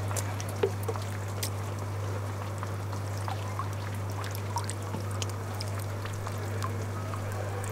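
Water trickling and dripping, with scattered small splashes and drops plinking over a steady low hum.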